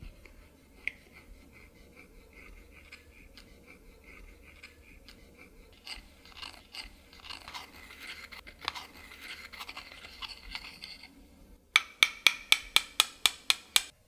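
Small close-up clicking and crackling handling sounds, growing denser partway through, then a quick even run of about a dozen sharp clicks near the end.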